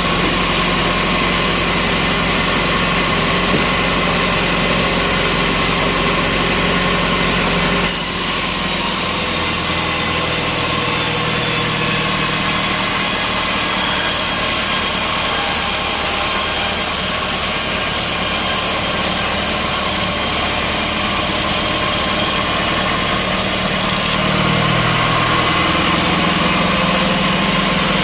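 Sawmill machinery running steadily with a constant motor hum. About eight seconds in the sound changes, with more hiss and a shifted low hum, and it changes back near the end.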